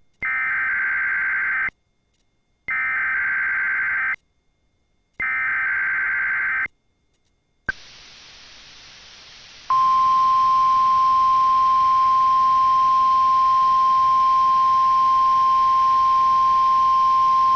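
Emergency Alert System SAME header relayed by a Sage EAS ENDEC for a NOAA Weather Radio required weekly test: three bursts of digital data tones, each about a second and a half long. Radio hiss then opens, and about ten seconds in the steady 1050 Hz NOAA Weather Radio tone alert comes on and holds.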